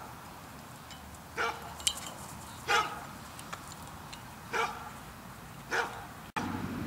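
Border collie barking while working: four short, excited barks spaced a second or so apart. A single sharp click sounds just before two seconds in.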